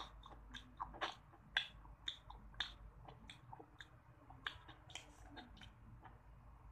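Close-miked chewing of a bite of coated ice cream bar: a quick run of sharp crackles and mouth clicks, which thin out after about five and a half seconds.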